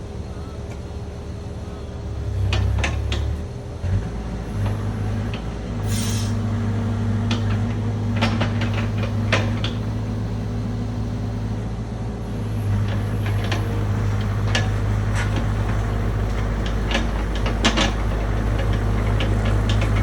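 Cat 305 mini excavator's diesel engine running under hydraulic load, its pitch shifting a couple of times early on, with a short hiss about six seconds in. Repeated sharp knocks and clatter run throughout as the bucket works a pile of wood scraps.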